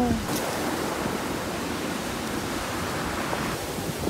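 Sea waves washing against the shore rocks: a steady rushing noise, with a faint click just after the start.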